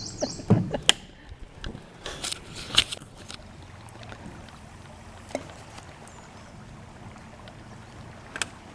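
Several sharp knocks and clicks from handling gear in a small fishing boat, clustered in the first few seconds, with another about five seconds in and one near the end. A steady low background of wind and water runs underneath.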